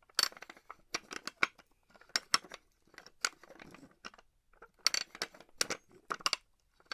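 Small metal pulley being worked in short bursts: irregular metallic clicks, squeaks and rattles of the sheave and its fittings, with brief pauses between the bursts.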